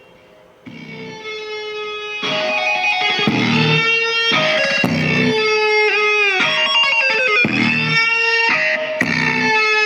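A song played back through a homemade cardboard speaker box. It comes in about a second in and gets louder about two seconds in, with held melody notes and one note bending downward around the middle.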